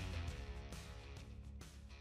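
Background music fading out.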